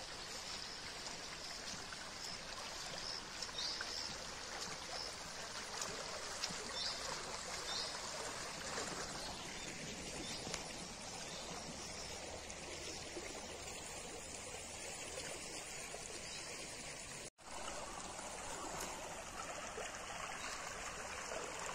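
Floodwater rushing steadily along a shallow, overflowing channel, with a few short high chirps in the first several seconds. The sound cuts out for an instant about three-quarters of the way through.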